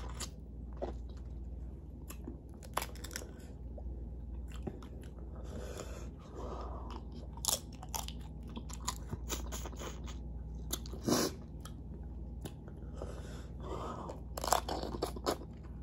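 Close-up mouth sounds of a person eating boiled shrimp: irregular chewing, smacking and crunching, with a few louder sharp bites. A steady low hum sits underneath.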